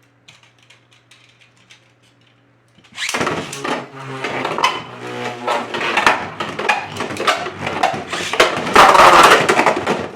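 Two 3D-printed Beyblade spinning tops launched into a stadium about three seconds in, then spinning and clashing with rapid repeated heavy hits, the loudest stretch of collisions near the end.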